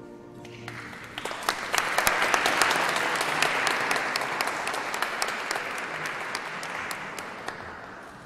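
Audience applauding: the clapping starts about a second in, swells, then slowly fades. The last notes of music die away just before it.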